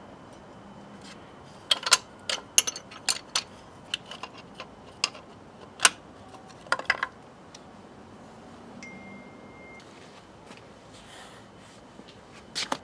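Hand tools, an open-end wrench and a screwdriver, clinking against metal parts at the centre of a BMW K75's clutch housing. The sharp, irregular clinks come in clusters from about two to seven seconds in, with another clink near the end.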